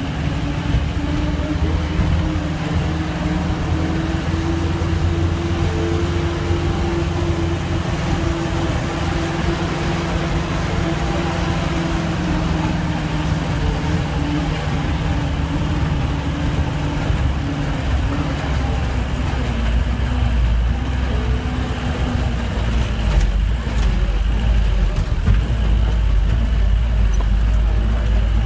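Bus engine running under load, heard from inside the passenger cabin as a steady deep rumble. Its note slowly rises and then falls, and the rumble grows heavier near the end.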